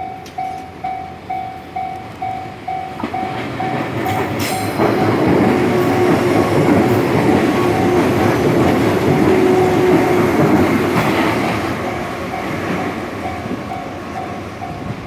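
A level-crossing warning bell rings in even pulses, about two a second. About three seconds in, a set of Kumoya 145 electric rail cars comes through the crossing with loud wheel and rail noise that covers the bell for several seconds. The train noise fades near the end while the bell keeps ringing.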